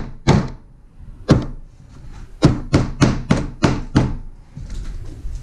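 Claw hammer blows on the wooden frame of a canoe seat, knocking staples home. A couple of single strikes, then a quicker run of about six blows from midway on.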